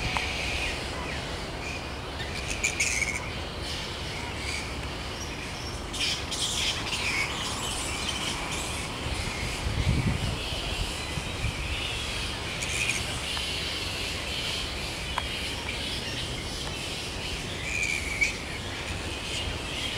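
A roosting colony of flying foxes squabbling: a continuous din of high-pitched chattering squeaks and squeals, with louder flurries now and then.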